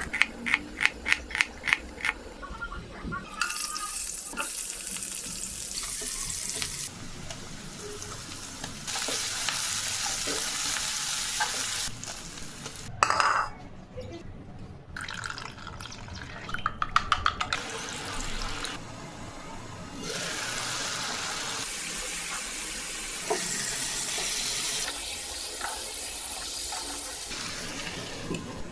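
Curry cooking in a pan, in short cut-together clips: long stretches of oil sizzling as onions, spices and chicken fry, broken by two quick runs of sharp knocks, one at the start and one about halfway through, with occasional stirring clatter.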